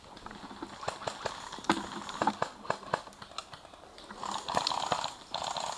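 Irregular crunching and snapping of footsteps through dry leaf litter and twigs, then a stretch of denser rustling about four seconds in.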